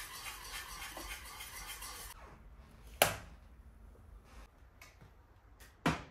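Kitchen utensil sounds while a latte is made on the stovetop: a fast clatter for about two seconds, then two sharp knocks about three seconds apart, the first the loudest.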